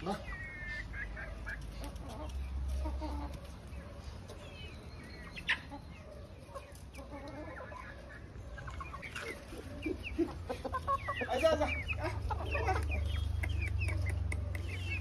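Domestic chickens clucking, with many short calls scattered through and a busier run of calls in the second half. A steady low rumble lies underneath.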